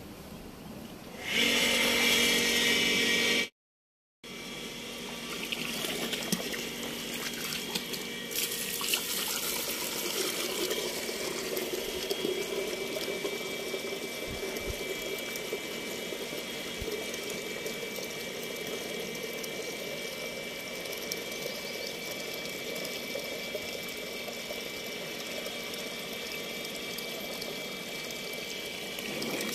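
Electric water pump switched on, running with a steady hum. Then water from a hose gushes steadily into a steel bucket as it fills, the pump's hum under it.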